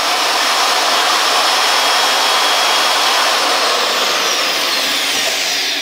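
Evolution EVOMAG75 magnetic drill's motor running loud and steady while an annular cutter cuts 3/16-inch steel plate; near the end its pitch falls and it stops.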